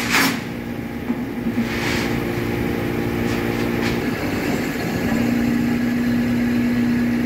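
Crane truck's engine running steadily with a low hum that gets louder about five seconds in, with a few light metal clanks of chains being handled.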